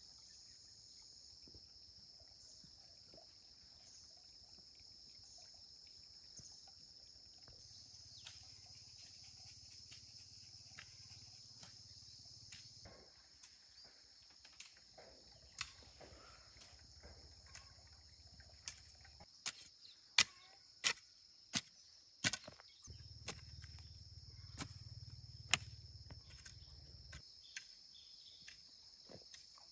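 Steady high-pitched insect chorus of crickets, with a series of sharp knocks at irregular intervals starting about eight seconds in, the loudest a little past the middle.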